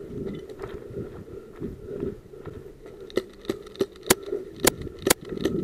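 Footsteps and rustling while walking on grass. About halfway through comes an irregular run of about seven sharp clicks or snaps, the loudest near the end.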